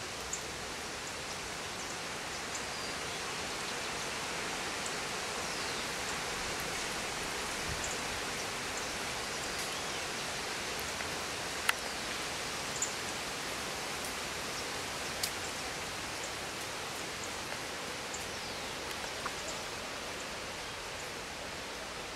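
Steady outdoor hiss, like light rain or distant running water, with a few faint short falling high chirps and a few sharp clicks, the loudest about halfway through.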